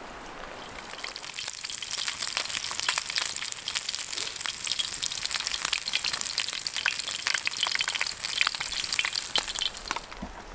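Trout sizzling and spitting in a pan over a wood campfire, a dense steady crackle that starts about a second in and dies down near the end.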